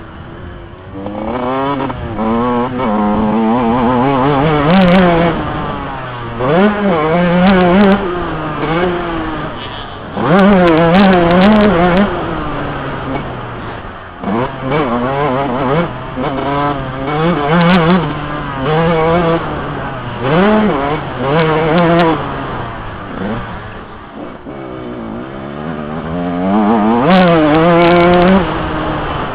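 Yamaha YZ125 single-cylinder two-stroke motocross engine, loud, repeatedly revving up through the gears and falling off when the throttle is closed, racing over a dirt track.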